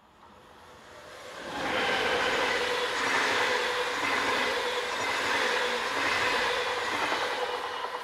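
A Deutsche Bahn double-deck Intercity train passing close at speed, its wheels rolling on the rails. The sound swells quickly over the first two seconds into a steady rush with a faint constant hum in it, then begins to fade near the end as the train moves away.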